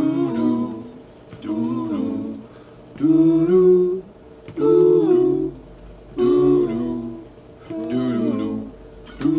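A group of men's voices humming a slow wordless tune together in harmony, a cappella, in about six short phrases of roughly a second each with gaps between.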